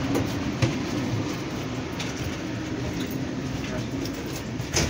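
Low murmur of a group of people talking in the background, with footsteps and a few sharp knocks as they file into a railroad car.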